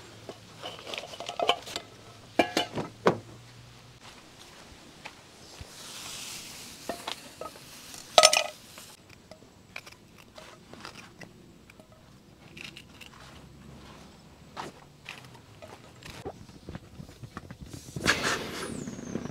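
Scattered clicks, knocks and clinks of small objects, with a louder knock about eight seconds in and a brief rustling burst near the end.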